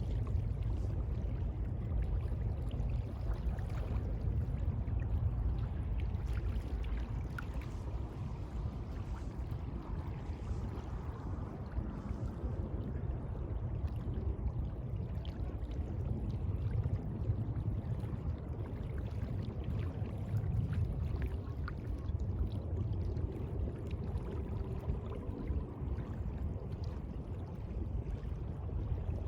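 Sea water lapping and sloshing in a steady, continuous wash, with faint small splashes scattered through.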